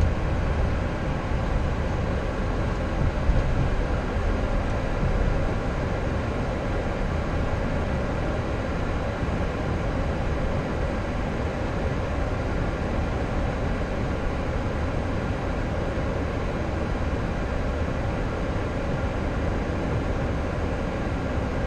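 Steady cockpit noise of a Boeing 737-800 taxiing slowly, its CFM56-7B engines at idle, with a low rumble and faint steady high tones.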